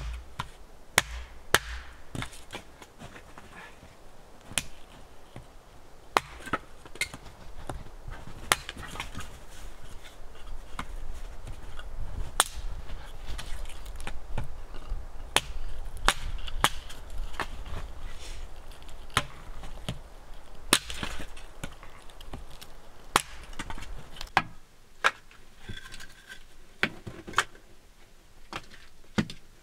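Small hatchet chopping firewood into kindling on a wooden block: sharp, irregular wooden knocks about every one to two seconds. The chopping stops a few seconds before the end.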